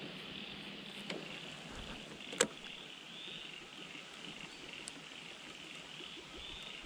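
Baitcasting reel being worked on a lure retrieve: a soft click about a second in and a sharp click a little over two seconds in, over a faint steady high hiss of outdoor ambience.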